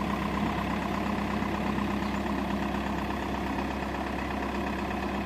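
Kia Carnival engine idling steadily. It is running again after a crank-but-no-start fault was repaired.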